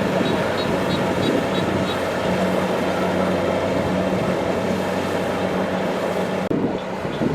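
Kubota DC-70 Plus rice combine harvester running steadily under working load, its diesel engine humming with machinery noise on top. The sound turns duller near the end.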